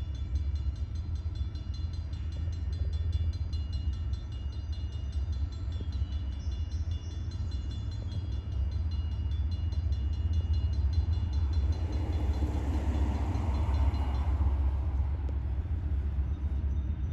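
Freight train rolling past, a steady low rumble from the cars, swelling a little about twelve seconds in.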